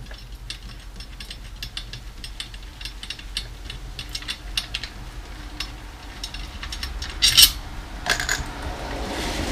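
Light metallic clicks and clinks of drum hardware being handled, with a louder clatter about seven seconds in.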